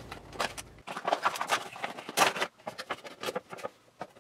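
A cardboard Funko Pop box being opened by hand: a run of irregular clicks, scrapes and rustles of cardboard and plastic packaging.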